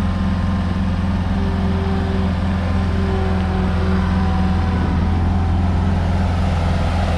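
Case SR150 skid steer loader's diesel engine running steadily at a constant speed.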